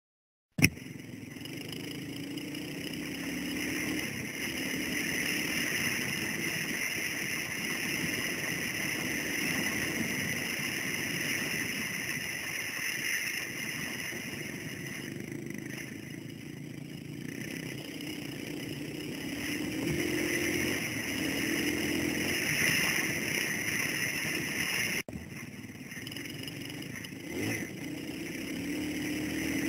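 Dirt bike engine running under way, its pitch rising and falling as the throttle is worked, heard from a helmet camera on the rider. It starts abruptly with a click about half a second in and drops out briefly near the end.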